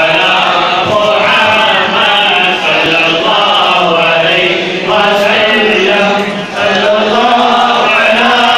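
Men's voices chanting together in a loud, continuous devotional chant, the Islamic rathib recitation.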